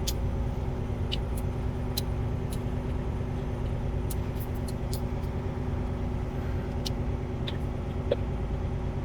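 Heavy diesel engine running steadily, a low rumble with a steady hum, with a few faint light clicks scattered through.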